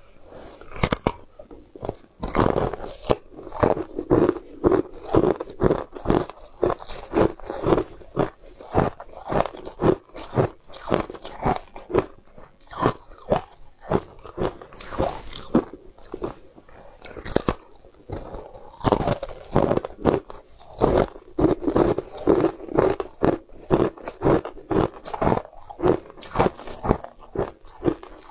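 Chunks of ice being bitten and chewed close to the microphone: a steady run of crisp crunches, several each second.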